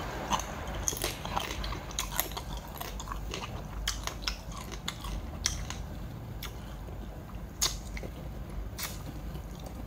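A person chewing and biting a mouthful of spicy crab salad, with irregular sharp crunches and clicks.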